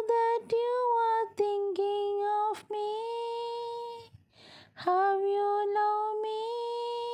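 A high solo voice singing without accompaniment in long, held notes. It breaks off briefly about four seconds in, then comes back on a note that slides up and holds.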